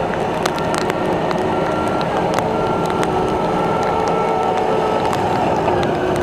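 Heavy road-clearing equipment running steadily, with a reversing alarm beeping about once a second and scattered sharp clicks and knocks.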